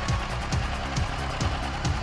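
Background electronic dance music with a steady beat: a kick drum about twice a second with hi-hats between.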